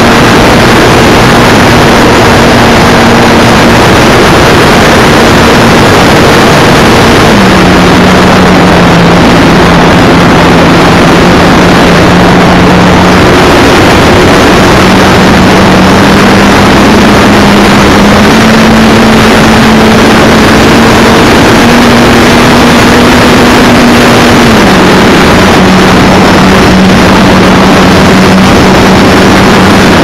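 Motor and propeller of a radio-controlled model plane humming steadily under a heavy rush of wind noise on the onboard camera's microphone. The hum's pitch steps down and up a few times as the throttle changes.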